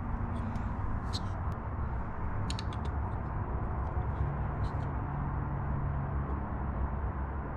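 A steady low background hum, with a few faint light clicks and taps from a digital caliper and a pen being handled on a wooden bench.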